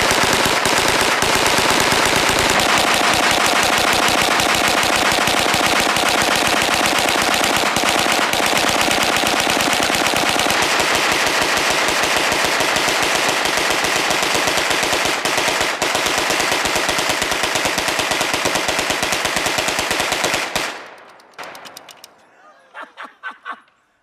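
Hand-cranked 9mm Gatling gun firing one long, continuous burst of rapid shots, cut off abruptly about 21 seconds in and followed by a few faint clicks.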